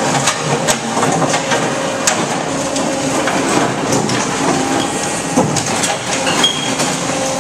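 Broken concrete clattering and scraping as a Brokk 180 demolition machine's grapple digs into a rubble pile, with frequent sharp knocks of chunks striking one another. Under it the machine's power unit runs steadily with a constant hum.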